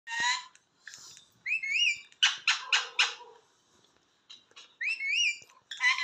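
Rose-ringed parakeet calling in short bursts: sharp calls, two rising-and-falling whistles, and a run of four harsh squawks about two seconds in.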